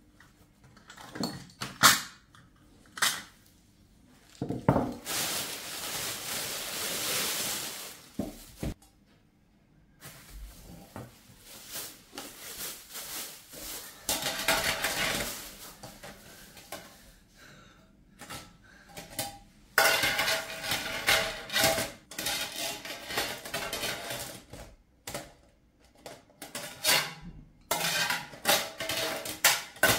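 Dishes and kitchenware clinking and knocking together as they are handled, in a run of separate knocks and ringing clinks, with about three seconds of steady hiss-like noise near the start.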